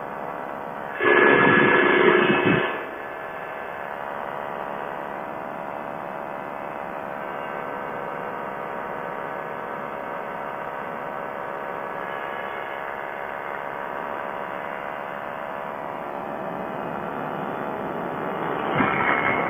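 Quicksilver ultralight's engine and propeller running steadily in cruise flight. A much louder burst of noise about a second in, lasting nearly two seconds, briefly covers the engine, and a smaller one rises near the end.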